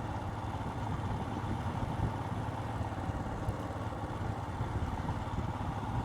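Royal Enfield Himalayan's single-cylinder engine running steadily under the rider.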